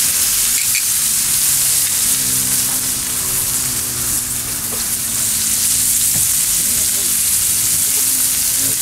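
Bison NY strip steaks searing in butter on a hot cast-iron Weber Gourmet System sear plate: a steady, loud sizzle.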